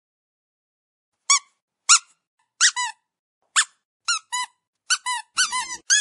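Squeaky dog toy being squeezed repeatedly, giving short, high-pitched squeaks. They start about a second in, come singly and in pairs, and crowd into quick runs near the end.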